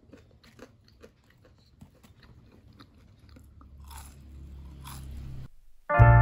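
Faint crunching and small clicks, with a low hum swelling for a couple of seconds and then cutting off. Loud piano music comes in near the end.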